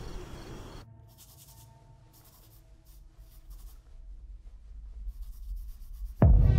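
Pen scratching on paper in a notebook, faint, in short runs of strokes over a soft steady drone. Near the end a sudden loud blare with many tones cuts in.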